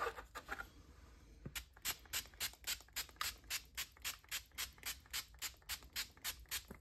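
Plastic trigger spray bottle squirting a hydrogen peroxide solution onto seedling soil in quick repeated pumps, about four short sprays a second, starting about a second and a half in.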